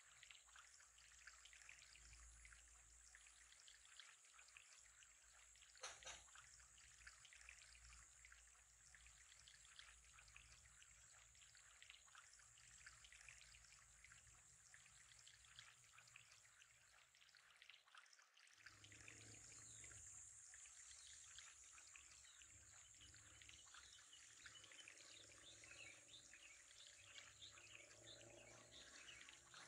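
Faint trickling of running water with a steady high hiss, briefly dropping out about two-thirds of the way through.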